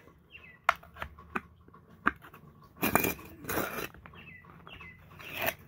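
Claw of a small crate hammer prying a nail out of a wooden board: a few short clicks, then two longer scraping, creaking bursts, one in the middle and one near the end. Birds chirp faintly in the background.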